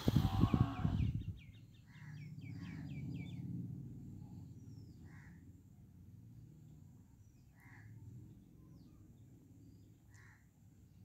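A loud knock or handling noise at the start, then birds calling: a quick run of short falling chirps, followed by single calls every two to three seconds over a low hum.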